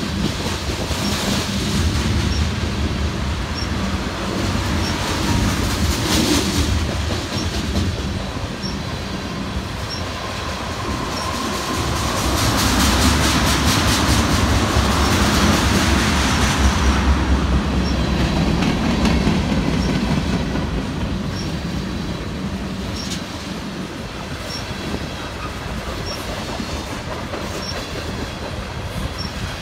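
Freight train tank cars rolling past, steel wheels running on the rails in a steady rumble that swells louder for several seconds in the middle.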